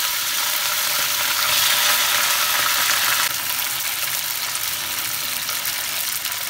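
Raw chicken pieces freshly dropped into hot oil in a kadhai, sizzling loudly and steadily. The sizzle eases a little about three seconds in.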